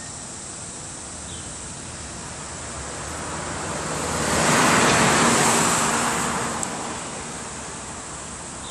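A box truck driving past on the road: its tyre and engine noise swells over a few seconds, then fades away, over a steady background of road traffic.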